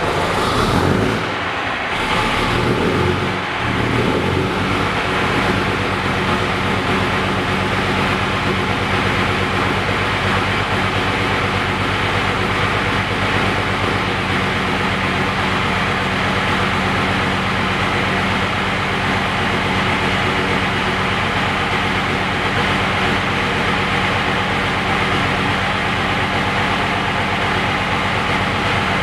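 Gardner six-cylinder diesel engine of a Bristol RE bus, started cold after weeks standing. Its revs rise and fall unevenly for the first few seconds, then it settles into a steady idle.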